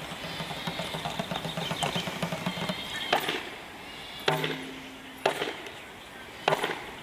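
A low hummed vocal drone for the first few seconds, then sharp knocks, four of them about a second apart. A brief low hum comes with the second knock.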